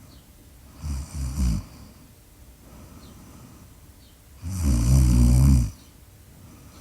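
Snoring during sleep. A shorter, broken snore comes about a second in, then a louder, longer snore with a low pitched buzz around the five-second mark, with quieter breathing in between.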